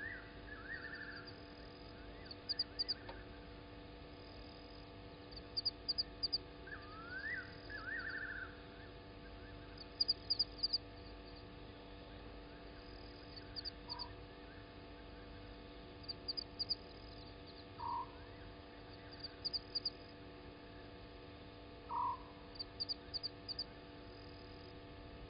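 Frogs calling: short bursts of three or four high clicking notes every two to three seconds, with occasional lower single notes and a couple of rising whistled calls near the start. A low steady hum runs underneath.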